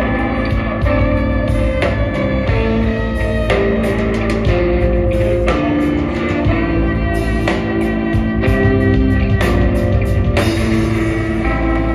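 Live rock band playing an instrumental passage: fiddle, guitars and drum kit, amplified. Held notes change about every half second over regular drum hits.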